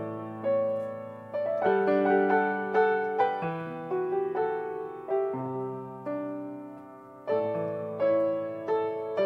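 Grand piano played solo: chords and melody notes struck and left to ring and fade. The music softens after about six seconds before a fresh chord is struck.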